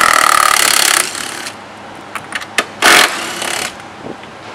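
Cordless drill-driver spinning a 10 mm socket to back out bolts, its motor whining in two bursts: about a second long at the start, and a shorter one about three seconds in.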